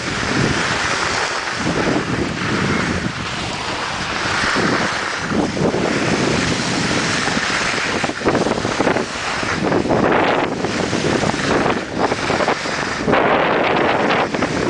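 Wind buffeting the microphone and skis hissing and scraping over packed snow during a downhill run, the rushing noise swelling and easing every second or two.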